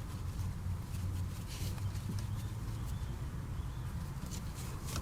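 Faint rustling and scraping of rope being handled and pulled through a knot, a few soft scrapes over a steady low hum.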